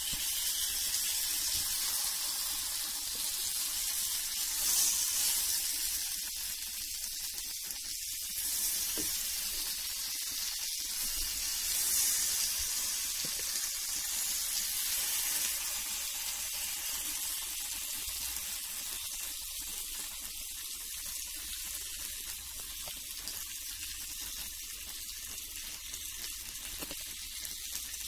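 Melted butter sizzling in a flat pan on low heat as thin raw potato slices are laid into it, a steady hiss that eases off a little in the second half.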